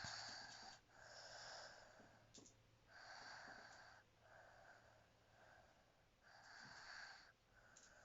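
Faint breathing of someone asleep: about three slow breath cycles, each a hissing in-breath followed closely by an out-breath, with a high hiss on top and little low rattle.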